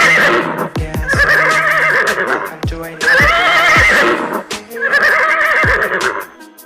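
Horse whinnying, four wavering calls in a row, over backing music with a regular drum beat.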